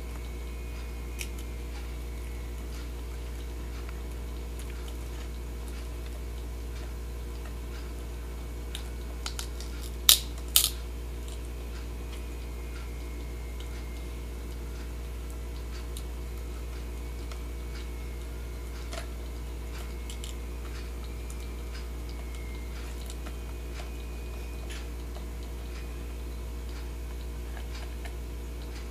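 Crab picking at and eating chips: scattered faint ticks and crunches, with two sharp clicks about half a second apart roughly ten seconds in, over a steady low hum.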